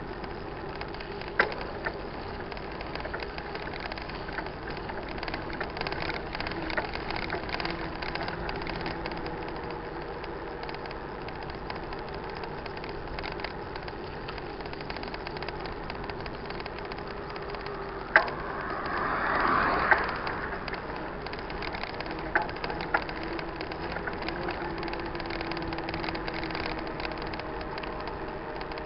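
Mountain bike being ridden on a dirt road: steady tyre and wind noise with a few sharp knocks from the bike, and a brief swell of louder noise about twenty seconds in.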